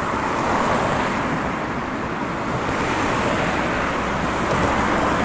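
Steady rush of motorway traffic as heavy lorries pass: an even roar of tyres and engines.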